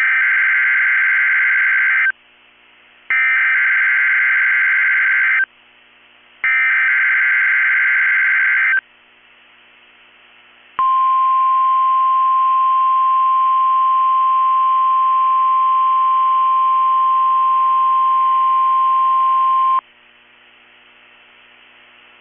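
NOAA Weather Radio SAME data header: three screeching, warbling digital bursts of about two seconds each. After a short pause comes the weather radio's 1050 Hz warning alarm, one steady single-pitch tone held for about nine seconds that cuts off sharply. Together they open the station's Required Weekly Test.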